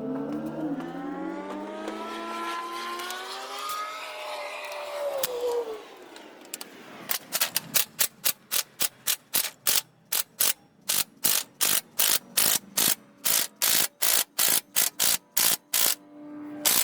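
Ratchet wrench clicking in short repeated strokes, about two to three a second, turning a long bolt that draws an LS engine's harmonic balancer onto the crankshaft. Before the ratcheting starts, a long squeak rises and then falls in pitch.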